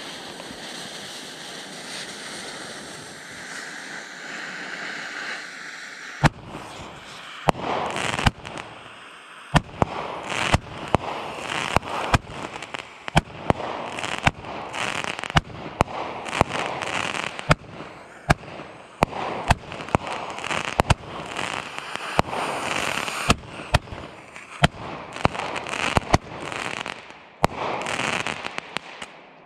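A small 16-shot, half-inch-bore firework cake: a steady hiss for about six seconds, then a rapid run of tube launches and sharp burst reports, each burst a titanium-crackle chrysanthemum that fills the gaps with crackling. It is really loud for the bore size, and the shots stop just before the end.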